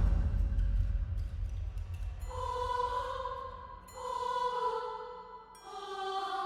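Eerie horror sound effect: a deep rumble fading away, then three ringing, chime-like notes one after another, each swelling and dying away, the last one lower in pitch.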